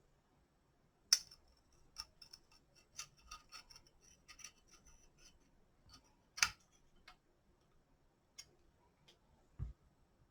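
Small metal parts being handled, clicking and tapping: a sharp click about a second in, a run of light clicks, another sharp click a little past six seconds, and a dull thump near the end.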